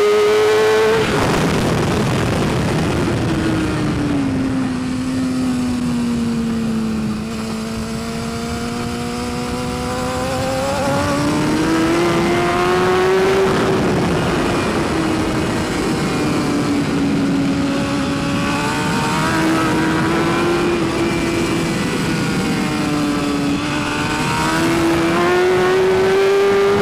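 2012 BMW S1000RR's inline-four engine heard onboard at racing speed, with wind noise. The revs drop off for several seconds, then climb again and hold high with small dips, rising once more near the end.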